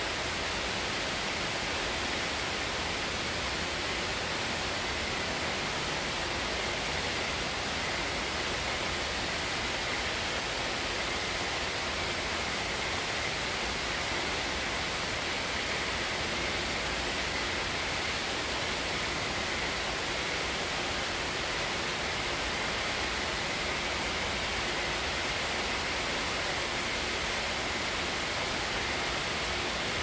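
Manai Falls, a waterfall dropping down a gorge cliff into a river pool, pouring with a steady, unchanging rush of falling water.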